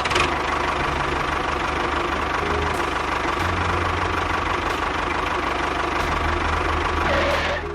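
An engine running steadily with a rough, rapid knocking rattle. It starts abruptly and stops near the end, with faint music underneath.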